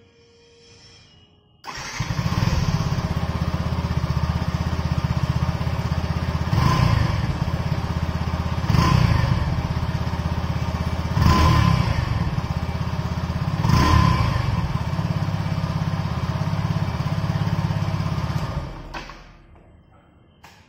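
Yamaha FZS V3's 149cc air-cooled single-cylinder four-stroke engine heard at the exhaust: it starts up about two seconds in and idles steadily. It is blipped four times, each a quick rise and fall in revs, then switched off near the end.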